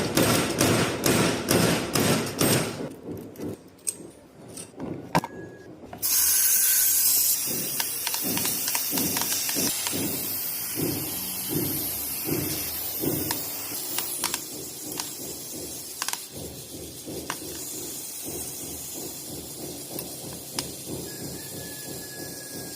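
Bicycle freehub (cassette) ratchet clicking rapidly, thinning to scattered clicks. A loud steady hiss starts suddenly about six seconds in and slowly fades, with occasional clicks over it.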